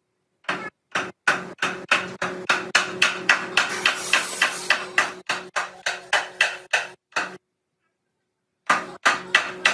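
Rapid hammer blows, about three a second, with a steady ringing note beneath them; they stop for about a second and a half, then start again near the end.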